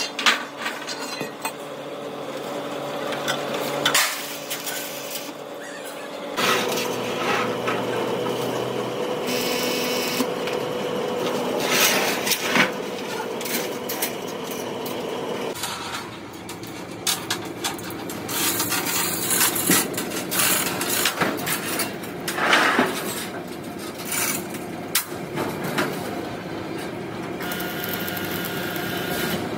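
Workshop metalworking noise: repeated knocks and clatter of tools on metal over a steady machine hum, the mix changing abruptly several times.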